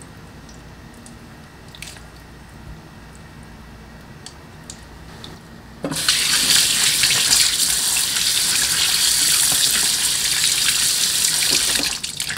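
Kitchen tap turned on about halfway in, water running hard into a stainless-steel sink and splashing over hands under the stream, then cut off just before the end. Before the water, only faint clicks of handling.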